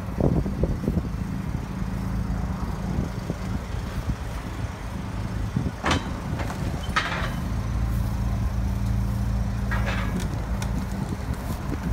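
An engine running steadily at idle, with a few short noises about six, seven and ten seconds in.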